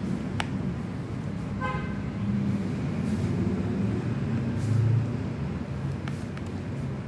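Road traffic rumbling, swelling as a vehicle passes about five seconds in, with a short horn toot about two seconds in and a sharp click near the start.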